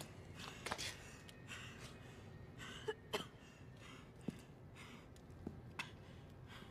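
Quiet room with faint breaths and sighs, and scattered small clicks and rustles of movement.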